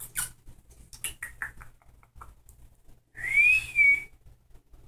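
A person whistling once: a single clear whistle of about a second that rises and then falls, about three seconds in. It comes after a few short, soft clicks.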